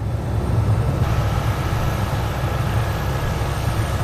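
MD 500D helicopter's turbine engine and rotor running steadily: a dense low rumble with a faint high whine over it. The sound swells up at the start.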